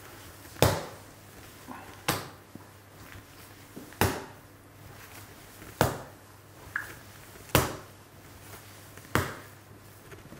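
Wet bread dough slapped down hard onto a wooden worktop and folded over by hand, six sharp slaps about every one and a half to two seconds. This is the slap-and-fold way of working a sticky, high-hydration dough by hand to build its strength.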